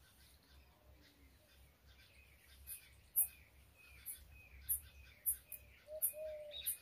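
Comb strokes through long hair: short, sharp, high-pitched swishes about twice a second, starting about three seconds in. Birds chirp in the background, and a low held call joins near the end.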